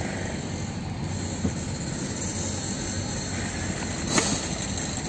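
UD Quester truck's diesel engine running steadily, heard from inside the cab, under an even hiss. A short knock sounds about four seconds in.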